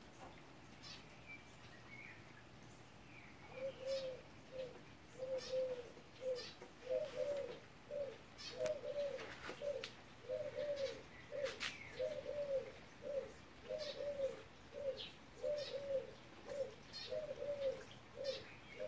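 A dove cooing over and over in a steady rhythm, starting a few seconds in, with faint high chirps from small birds above it.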